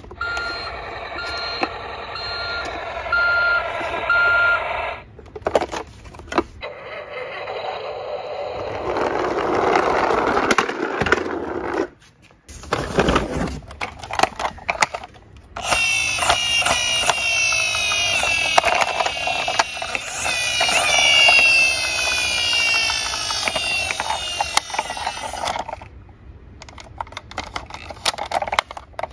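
Battery-powered toy vehicles playing electronic sound effects: repeated beeping tones for the first few seconds, then from about halfway a toy emergency vehicle's electronic siren wailing up and down for about ten seconds. Plastic toys clatter against each other in a cardboard box.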